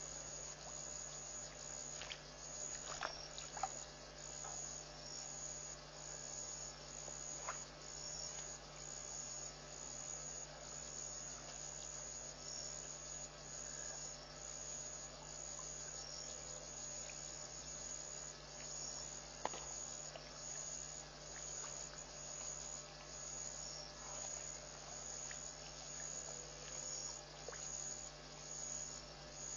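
Night insects, crickets by the sound of it, chirring in a steady high trill with a soft pulse about once a second. A few faint short clicks stand out, one about three seconds in and another near twenty seconds.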